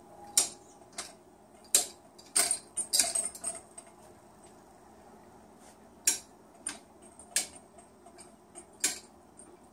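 A series of sharp, irregular taps and clicks on a hard surface, about a dozen in all, bunched in the first few seconds and again a few seconds later.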